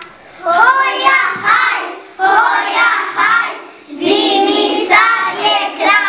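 A group of young children singing a song together, in three phrases with short breaks between them.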